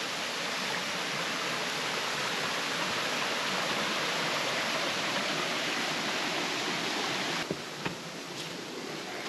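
Small creek rushing over rocks and little cascades, a steady even rush. About seven and a half seconds in it becomes quieter and two or three sharp clicks stand out.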